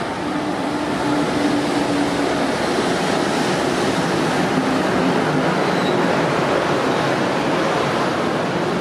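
Electric train running on the rails as it pulls out of the station, a steady rushing of wheels and running gear that grows a little louder about a second in, with a faint steady hum from the train's motors.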